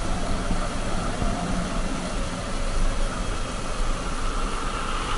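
Motorcycle running steadily as it rides downhill on a paved mountain road, with a steady rush of wind over the camera's microphone.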